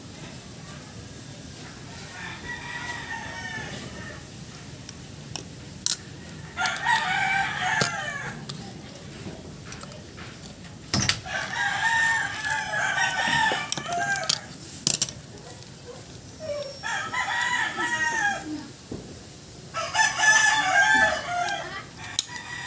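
Roosters crowing again and again, about six crows of a second or two each, with a few sharp metallic clicks between them.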